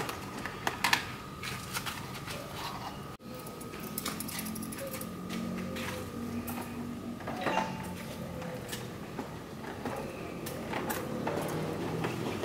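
Electric pet hair clipper running with a steady thin whine, with scattered clicks and taps from the grooming. The whine cuts off about three seconds in and comes back near the end.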